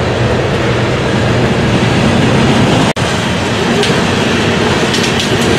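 BNSF coal hopper cars rolling past, a steady rumble and rattle of steel wheels on rail. The sound drops out for an instant about three seconds in.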